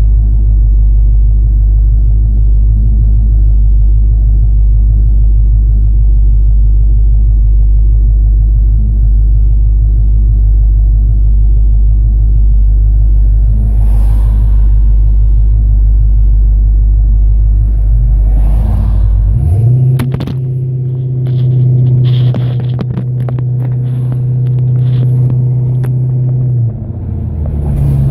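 Classic muscle-car V8 idling with a deep, steady rumble while stopped, then about two-thirds of the way through the car pulls away and the engine note rises. A short dip near the end, as at a gear change, and scattered crackles and rattles from wind and road on the exposed microphone.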